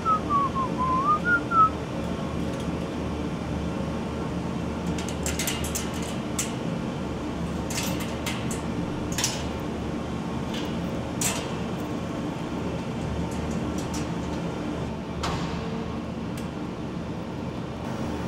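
A man whistles a short, wavering tune that stops about two seconds in. After that there is a steady industrial hum, with scattered sharp metallic clicks and clinks as the padlock and latch on a wire-mesh gate are handled.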